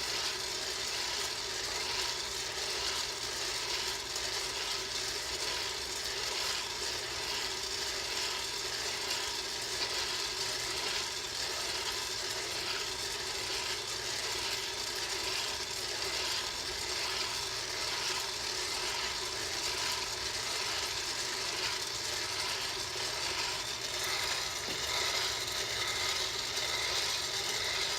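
Electric Barwell coffee roaster running steadily, its load of coffee beans rattling as they are churned, with a faint regular clatter from the mechanism. The beans are light tan, roasting toward first crack.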